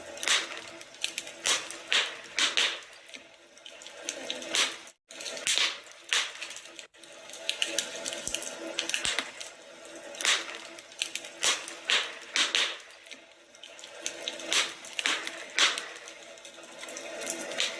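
Wood fire in a fireplace crackling, with irregular sharp pops and snaps over a steady hiss of burning; the sound drops out for an instant twice, about five and seven seconds in.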